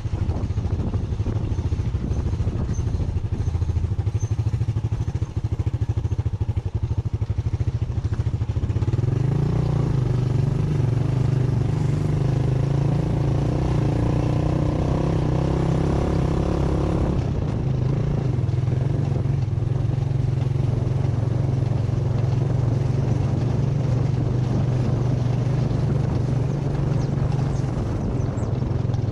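Motorcycle engine running under way, with a steady low drone. About nine seconds in its note grows clearer and climbs a little as it pulls harder, then drops back sharply after about eight seconds to the steady drone.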